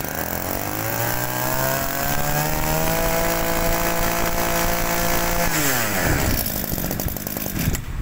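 Shindaiwa two-stroke brush cutter engine on a test run: the throttle is opened about a second in and the revs climb, it holds at high revs for a few seconds, and then the throttle is released and the revs drop quickly back toward idle.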